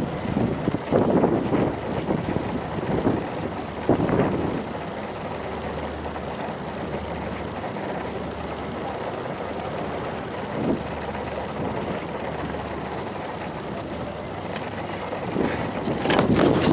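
Sandstorm wind buffeting the microphone in gusts, steadier through the middle and gusting hard again near the end.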